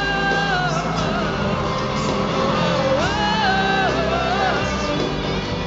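Live band music played through a concert PA, with a lead melody of long held notes that slide from one pitch to the next over a steady bass.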